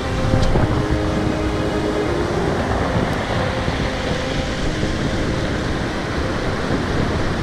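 Surf breaking and washing up the shore, with wind rumbling on the microphone: a loud, steady wash of noise.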